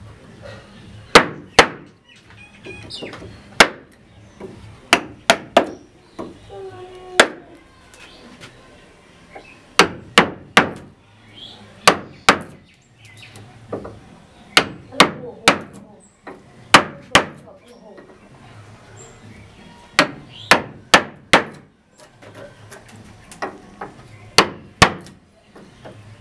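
Hammer striking the wooden handle of a chisel as it chops a recess into the edge of a wooden door frame: sharp knocks in quick groups of two to four, with pauses of a second or two between groups.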